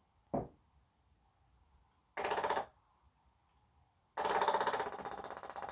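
12-volt electric fuel pump running dry in short bursts: a brief burst of rapid buzzing pulses about two seconds in, then a longer run of under two seconds, with a single thump about a third of a second in.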